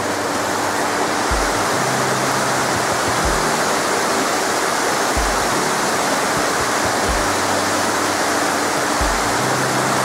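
Rushing mountain stream water, a steady dense hiss, with background music over it: a slow bass beat thumping about every two seconds with held low notes.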